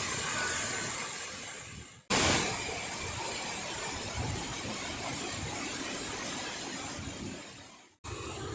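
Steady rushing roar of a waterfall's falling water, broken by two brief dropouts, one about two seconds in and one near the end.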